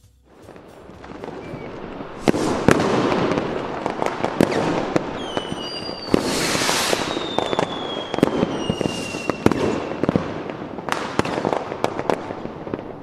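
Fireworks going off: a dense run of sharp bangs and crackling that grows louder about two seconds in, with a few long whistles slowly falling in pitch in the middle.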